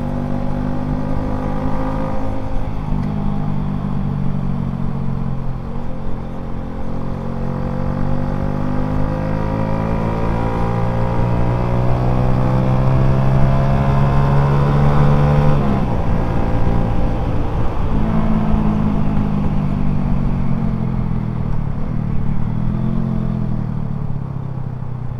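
Yamaha Jupiter Z underbone motorcycle's single-cylinder four-stroke engine running on the road, its note climbing slowly and steadily as it accelerates, then dropping sharply about two-thirds of the way through as the throttle is rolled off. A few shorter rises and falls follow, with wind rushing over the microphone.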